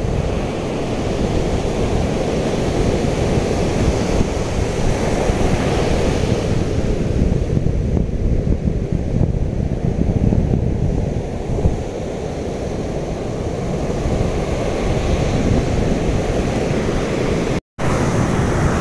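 Surf breaking on the shore, a steady rushing wash of waves with wind on the microphone. It cuts out for a moment near the end.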